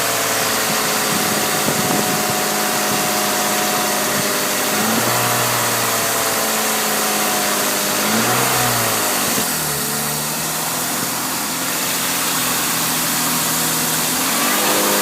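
BMW S52 3.2-litre straight-six idling steadily, revved briefly a few times, with the pitch rising and falling back. The engine has an exhaust leak.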